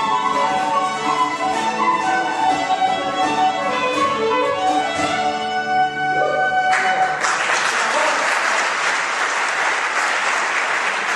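Flute, fiddle, bouzouki and bodhrán playing the closing bars of a Scottish tune set, the music ending about six and a half seconds in. Audience applause breaks out at once and carries on steadily.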